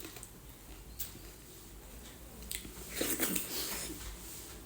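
A person chewing and biting food during a meal, with a few sharp clicks and a louder stretch of chewing about three seconds in.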